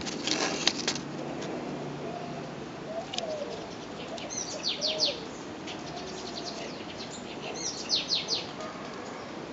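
Bird calls: two quick runs of high chirps about three seconds apart, with low arching cooing notes between them. A brief rustle with a couple of clicks sounds in the first second.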